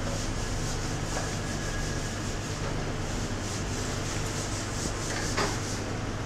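Steady rushing noise with a low hum under it, and a single light clink of a metal ladle against a pot about five seconds in.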